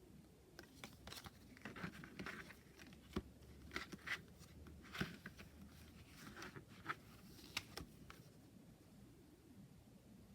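Oracle deck cards being handled: faint rustling of card stock with a string of light taps and clicks as cards are moved, stopping about 8 seconds in.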